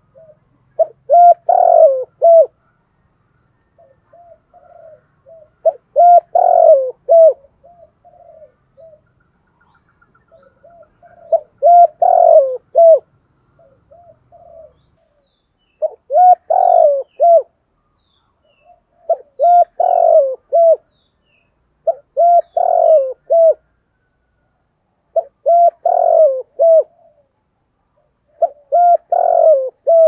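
Spotted dove cooing its repeated call: eight loud phrases of a few rounded notes, one about every three to four seconds, with soft short notes between the phrases.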